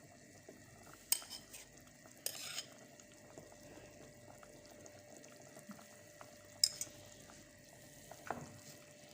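A spoon clinking and knocking against a pot and dishes a handful of times, with quiet gaps between; the sharpest click comes about two-thirds of the way through.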